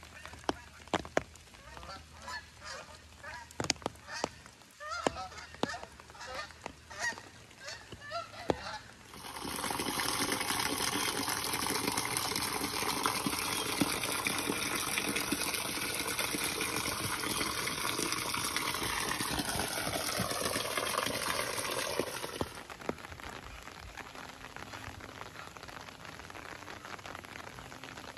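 Geese honking repeatedly for the first several seconds, among sharp drips of rain. Then a heavy stream of rainwater pours off a roof edge and splashes loudly and steadily for about thirteen seconds. It stops suddenly, leaving a quieter patter of rain.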